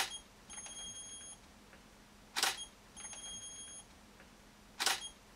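Three DSLR shutter clicks about two and a half seconds apart. Each is followed by a short high-pitched electronic beep and then a longer one, most of a second long. A faint steady hum lies underneath.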